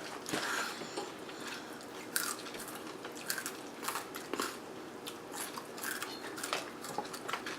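A person chewing crunchy food: irregular crisp crunches several times a second apart.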